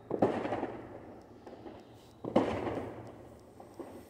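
Fireworks going off: two sudden bangs about two seconds apart, each trailing off over a second or more, with a few faint pops between them.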